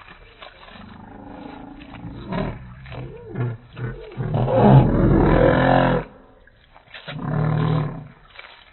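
Geese honking and crunching lettuce, slowed down by slow-motion playback so their calls come out as deep, drawn-out roars. The longest and loudest call comes about halfway through, and a second follows near the end.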